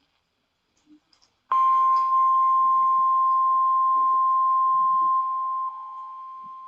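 NOAA Weather Radio 1050 Hz warning alarm tone: a single steady tone that starts sharply about a second and a half in after a short silence, steps down in volume a few seconds later and keeps fading. It is the alert that a warning, here a tornado warning, is about to be broadcast.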